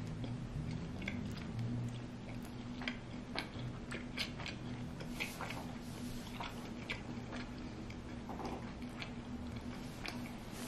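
A person chewing a tortilla wrap with soft, irregular wet mouth clicks, over a steady low hum.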